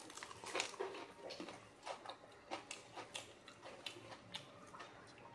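A man chewing a mouthful of dosa, with faint, irregular wet clicks and smacks of the mouth, roughly one or two a second.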